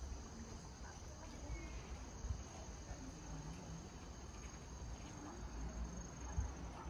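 Insect, cricket-like, trilling steadily on one high-pitched note.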